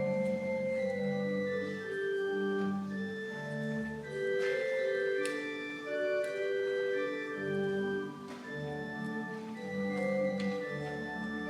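Organ playing offertory music: slow, held chords that change about once a second.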